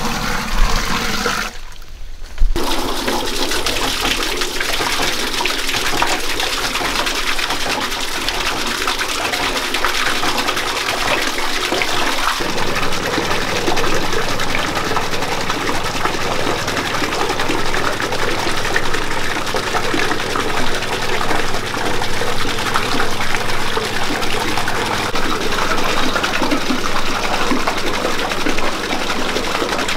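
Water pouring and splashing steadily, first from a clay pot, then falling from bamboo spouts onto a small bamboo water wheel. A steady low hum joins the splashing about twelve seconds in.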